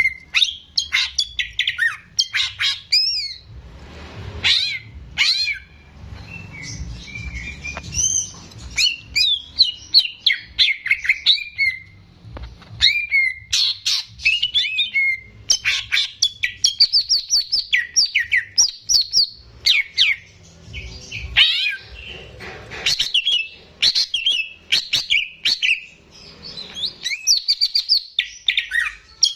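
Cucak ijo (green leafbird) singing continuously: a fast, varied run of whistled chirps and quick up-and-down slurred notes with hardly a pause.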